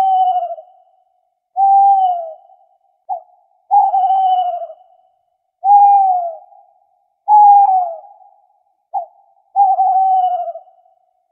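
Owl hooting: a pure, falling hoot about a second long, repeated about every two seconds, some hoots led by a short clipped note.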